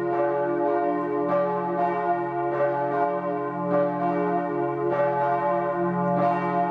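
Church bells pealing. The bells are struck about once a second, each stroke rising over a long, steady ringing hum.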